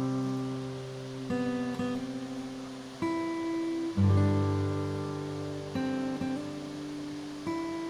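Background music: an acoustic guitar strumming chords, a new chord about every second or so, each ringing out and fading.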